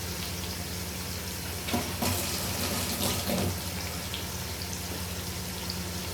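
Steady sizzle of food sautéing in a hot pan, with a few short utensil knocks about two to three seconds in.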